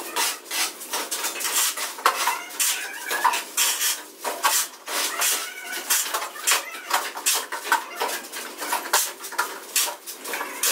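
Dense, irregular clinking and clattering: many sharp small knocks in quick succession, like hard objects striking one another.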